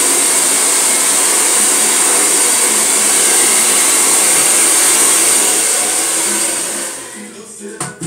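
Handheld hair dryer blowing steadily on a freshly glued weave track to set the bonding glue. It winds down and stops about seven seconds in.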